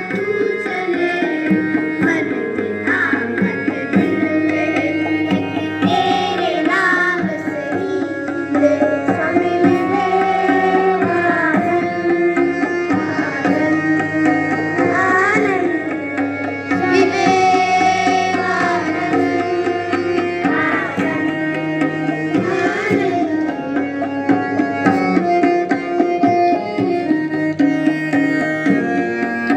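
Indian classical-style music led by tabla, with a gliding melody over a steady low drone.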